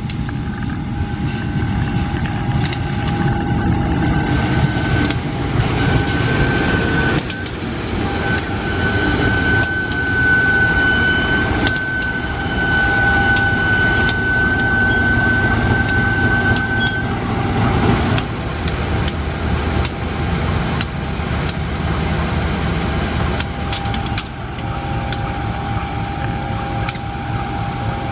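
CC 203 diesel-electric locomotive hauling a passenger train past at speed: a steady low engine and running-gear rumble with scattered clicks of wheels over the rail. A thin, steady high whine rides over it for much of the first half.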